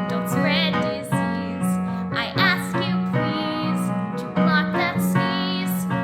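Children's song: a singing voice with vibrato over instrumental backing, with a sustained bass line and light percussion.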